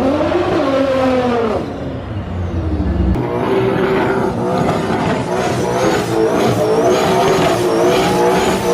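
Turbocharged car engine revving, its pitch rising and falling. About three seconds in the sound changes abruptly to another run of engine noise, with a faint high whine that rises and falls over it.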